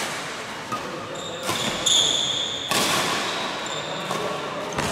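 Badminton rally: sharp racket strikes on the shuttlecock every second or so, with a high squeak of shoes on the court floor in between.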